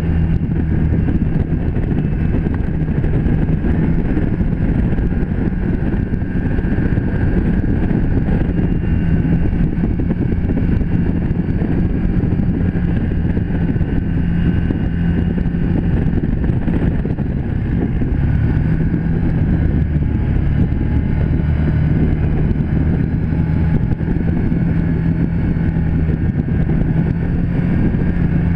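Can-Am Commander XT 1000 side-by-side's V-twin engine running at a steady cruising speed, heard from the driver's seat, with tyre and wind noise from the gravel road.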